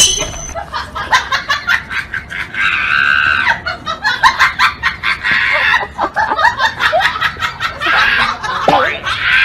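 People's voices laughing and shrieking, with short clicks and knocks throughout.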